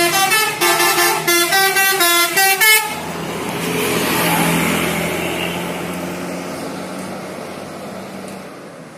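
A bus's 'telolet' multi-tone musical horn plays a quick run of short notes for nearly three seconds, then cuts off. The vehicle's running noise then swells and fades away as it passes.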